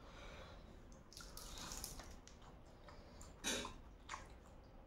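Faint wet eating sounds of spicy noodles and fried chicken feet being chewed and slurped, with two short, sharper mouth sounds about three and a half and four seconds in.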